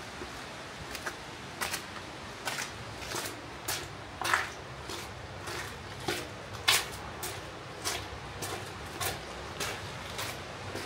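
Footsteps of a hiker walking steadily along a trail, a little under two steps a second, each a short crunching tread, with two louder steps near the middle.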